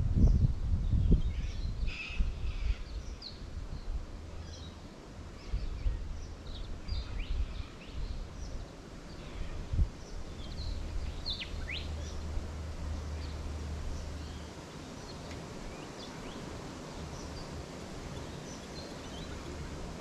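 Wild birds chirping and calling, short high notes and a few quick falling calls, over a low outdoor rumble of wind. A few dull low thumps in the first second or so.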